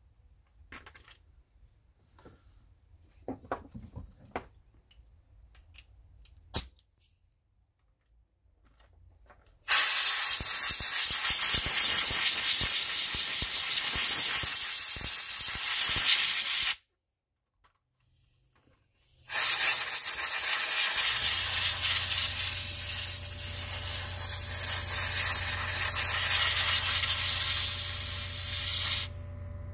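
Aerosol spray can spraying in two long, steady bursts, of about seven and ten seconds, after a few light handling clicks. The product is a spray sealant meant not to run or drip.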